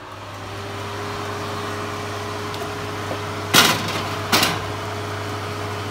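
Steady hum of a running electric oven that grows louder as its door swings open, then two sharp metallic clatters about three and a half and four and a half seconds in as a metal baking tin is set down on the oven's wire rack.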